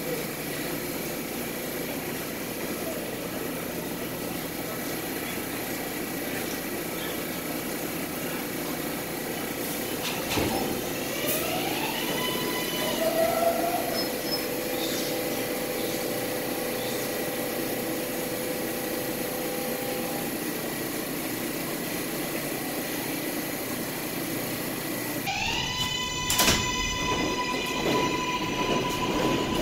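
New York City Subway R143 train humming in a station, with a few steady whining tones from its electrical equipment. About eleven seconds in, rising electric whines start up, and near the end more rising whines settle into a steady whine, with a sharp knock.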